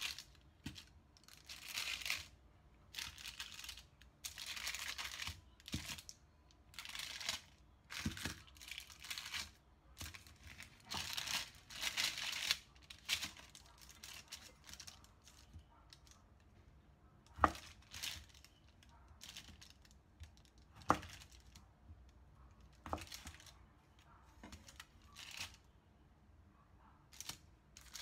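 Baking paper rustling and crinkling in repeated short bursts as hands move and press rolls of sticky dodol on it. Three sharp taps come in the second half.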